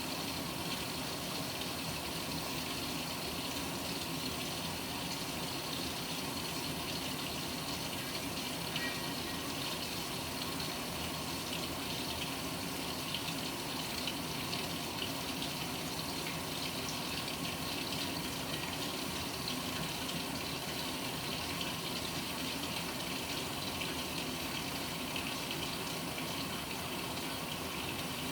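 Panasonic NA-FA100H9 top-loading washing machine filling its tub, water pouring in steadily.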